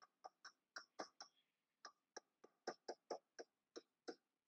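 A pen tip tapping and clicking against a writing board as letters are written one after another: faint, short ticks, about three a second at an uneven pace.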